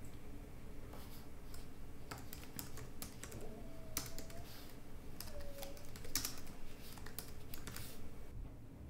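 Fingers typing on a laptop keyboard: quick, irregular key clicks that stop shortly before the end.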